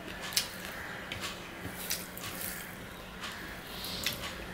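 Eating rice by hand: fingers mixing rice and curry on a steel plate and mouth chewing, with soft wet squishing and scattered small sharp clicks.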